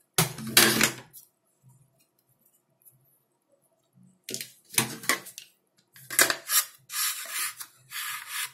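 Handling noise from a homemade airsoft rifle's barrel and body: a clattering knock, a few clicks, then several short scraping rubs near the end as the parts are moved against each other.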